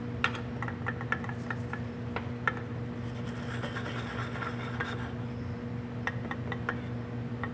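Butter melting in a small aluminium saucepan, crackling with scattered small pops and a faint sizzle, over a steady low hum.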